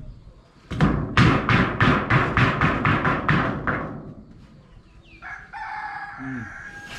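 A fast, even run of about a dozen rasping strokes, about four a second, lasting roughly three seconds. Then, near the end, a rooster crows once in a long call.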